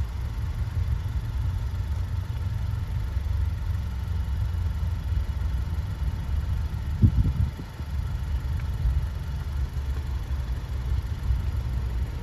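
Steady low engine rumble, with a single thump about seven seconds in.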